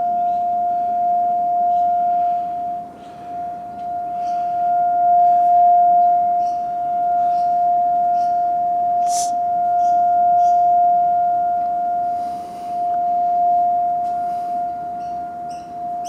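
A steady, unexplained humming tone from the sky, one pitch with a fainter overtone, swelling and fading in loudness, with small birds chirping over it.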